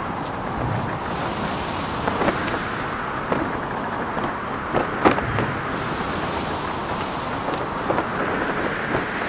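Wind rushing in gusts, with a flag flapping and giving scattered sharp snaps, the loudest about five seconds in.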